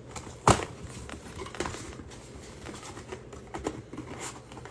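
A cardboard trading-card hobby box being handled and opened: a sharp knock about half a second in, then scattered light taps and clicks of cardboard.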